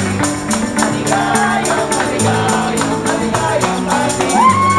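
Upbeat dance music with a steady beat and a moving bass line, and a voice singing a rising, held note near the end.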